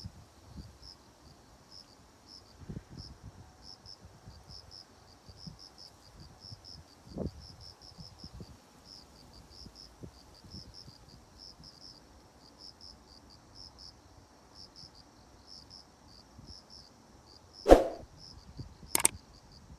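Crickets chirping steadily in short high-pitched chirps, a few each second. Two sharp clicks sound near the end, louder than the chirping.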